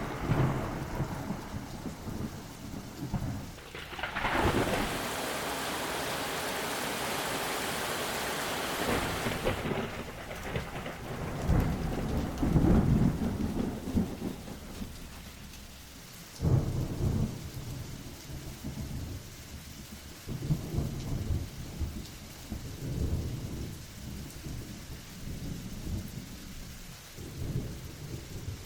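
Thunderstorm: repeated rumbles of thunder over rain, the loudest peal about twelve seconds in and a sharper crack about sixteen and a half seconds in. A steady hiss of rain sits over the rumbling from about four to nine and a half seconds in.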